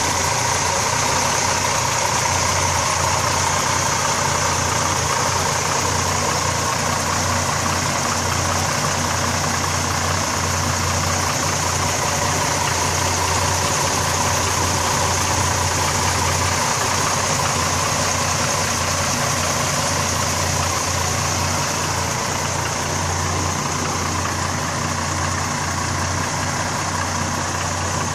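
A 1971 Chevrolet C-10 pickup's 250 cubic-inch inline-six engine idling steadily.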